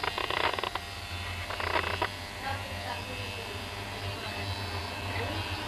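Electric hair clippers buzzing steadily while cutting a pattern into hair, with a few brief scraping rasps in the first two seconds.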